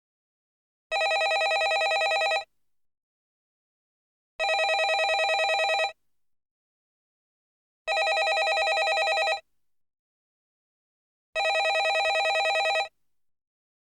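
Landline telephone bell ringing: four rings of about a second and a half each, with a fast rattling flutter to each ring, repeating evenly about every three and a half seconds with silence between.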